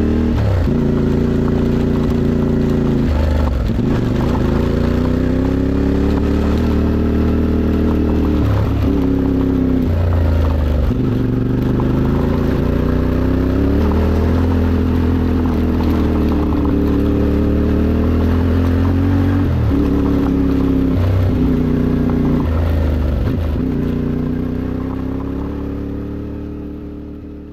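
CFMOTO 450MT's parallel-twin engine accelerating through the gears, its pitch climbing and then dropping at each of several gear changes. The sound fades out near the end.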